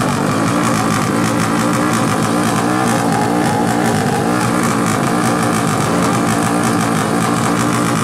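Carbureted 350 cc Yamaha Jupiter MX-based drag bike's single-cylinder four-stroke engine running loudly at a standstill, its note wavering slightly up and down.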